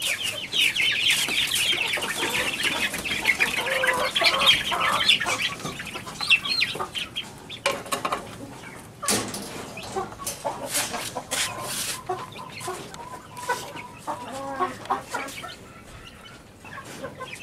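A flock of hungry young Aseel chicks peeping and clucking, loud and crowded at first, then thinning out after about six seconds as the chicks settle down to their feed. A few sharp knocks are heard in the second half.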